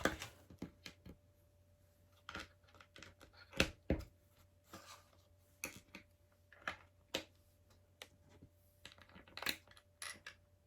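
Lego pieces clicking and knocking as they are handled and pressed together: scattered sharp plastic clicks, the loudest two about four seconds in.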